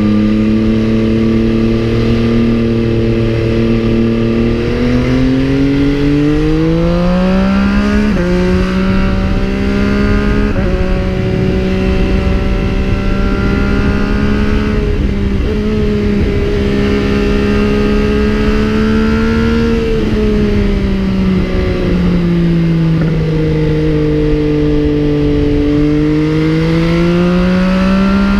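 MV Agusta Brutale 800 three-cylinder motorcycle engine under way, holding steady revs, then revving up with rising pitch and dropping suddenly at a gear change about eight seconds in. The revs fall off about twenty seconds in and climb again near the end.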